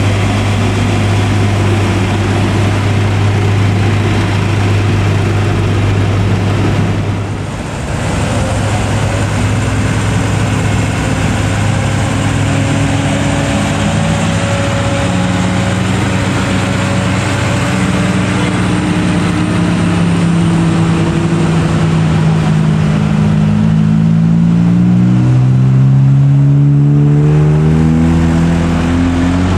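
Heavy truck diesel engine running with a steady low drone. After a cut about seven seconds in, a Mitsubishi Fuso 220PS truck's diesel engine labours slowly up a climb under load, its note wavering and then revving higher over the last few seconds as it draws near.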